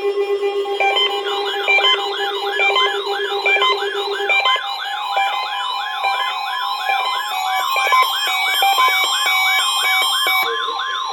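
Several weather alert radio receivers sounding their alarms at once, set off by the weekly NOAA Weather Radio test. There is a warbling siren that sweeps up and down about three times a second, stepping beeps at a few pitches, and a low fast-pulsing beep that stops about four seconds in.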